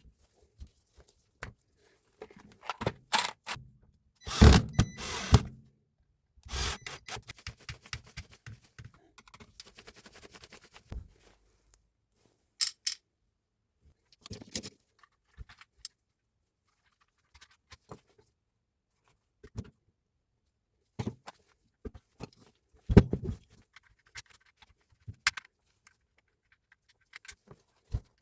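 Metal parts and hand tools being handled on a workbench: irregular clinks, scrapes and knocks with short pauses between them, a louder clatter about four seconds in and another a little past the middle.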